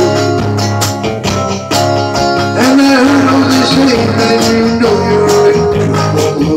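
Instrumental break in a 1960s-style pop-rock song: a melody line with held notes and slides, played over strummed electric guitar chords, a steady bass line and a drum beat.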